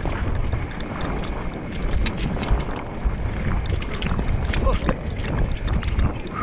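Wind buffeting the camera microphone while a mountain bike rolls fast over a rough dirt trail, with a dense run of clicks and knocks as tyres hit bumps and the bike rattles.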